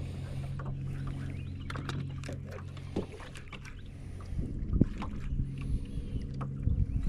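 A small motor's steady low hum that cuts out about three seconds in and starts again around five seconds, with scattered clicks and knocks.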